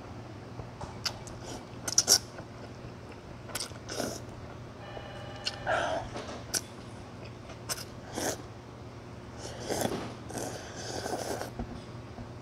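A person slurping and chewing noodles from a bowl, with short sharp clicks here and there and a denser run of slurping near the end.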